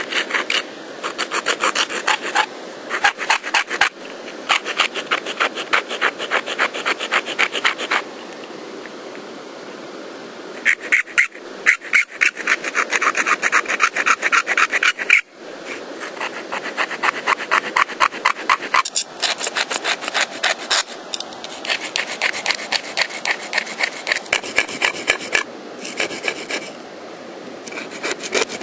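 Serrated bone scapula saw sawing through soft marsh-plant stems in quick back-and-forth strokes, about five a second. The strokes come in several runs broken by short pauses.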